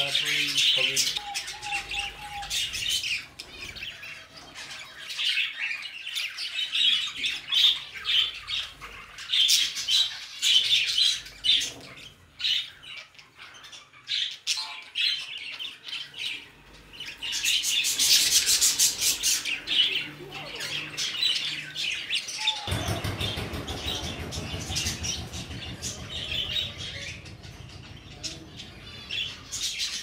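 Budgerigars chattering in a flock, a busy run of warbling chirps and squawks that comes and goes in bursts. About two-thirds of the way through a low steady hum comes in under the calls.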